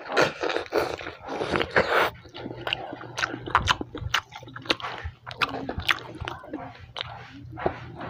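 Biting into crispy fried chicken: a dense crunching of the fried crust over the first two seconds, then chewing with many sharp, separate mouth clicks.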